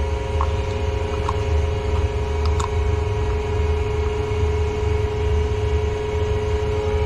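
Steady mechanical hum with a low rumble underneath, and a few faint light clicks from handling a small metal pressure-switch cover.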